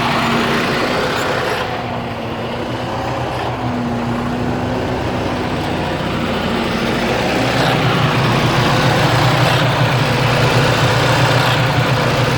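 Detroit Diesel DD15 inline-six diesel in a 2009 Freightliner Cascadia idling roughly, its note wavering and swelling every second or two, louder from about eight seconds in. The owner calls it a rough idle; a shop told him it is normal.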